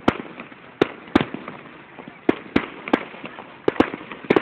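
Aerial fireworks bursting: a rapid, irregular series of about ten sharp bangs, some coming in quick pairs, each with a short echoing tail.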